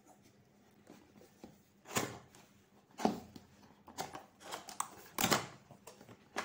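Cardboard box flaps being pulled open and the box handled: a series of irregular scrapes and rustles, the loudest about two, three and five seconds in.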